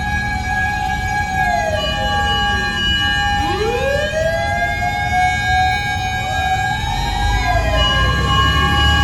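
Fire truck sirens wailing, their pitch sliding down and up in slow, overlapping cycles over a steady held tone, with the low rumble of the trucks underneath.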